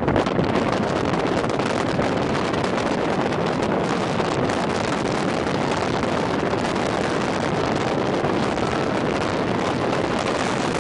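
Storm wind buffeting the microphone over the steady noise of heavy surf breaking on a rocky shore.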